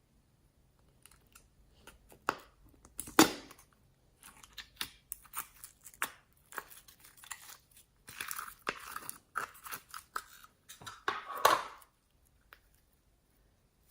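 Slime being squeezed, stretched and kneaded by hand, making irregular sticky clicks, crackles and squelching pops, with a few louder bursts.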